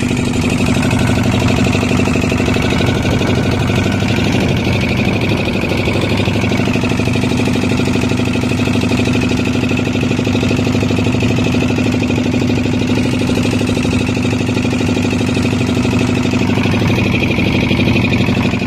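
A loud, steady motor drone with a held high tone over it, unchanging throughout.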